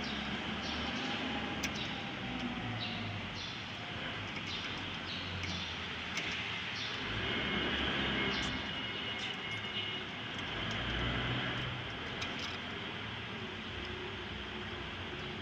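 Steady workshop machinery noise with faint light clicks and taps as small metal parts of a laser cutter's mirror mount are handled.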